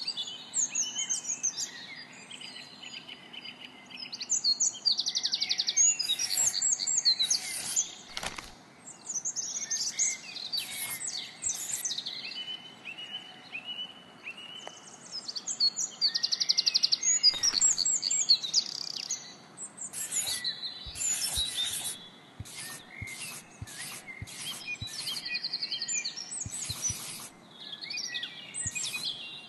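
Birdsong ambience: several birds chirping, whistling and trilling, coming in busy clusters with short lulls between them.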